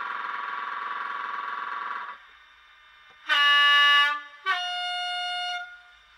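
Digital sound from an ESU LokSound V4 decoder in a Bachmann class 85 electric locomotive model, played through its small speaker. A steady locomotive hum cuts off about two seconds in. After a short pause comes a two-tone horn: a lower note, a brief gap, then a higher note.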